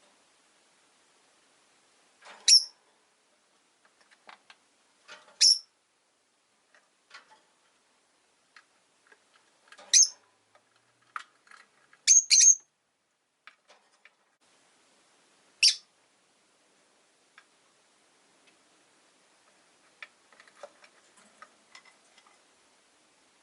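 Rosy-faced lovebirds giving short, sharp, high-pitched chirps, about six loud single calls a few seconds apart, two in quick succession about halfway through. Faint clicks and rustles in between.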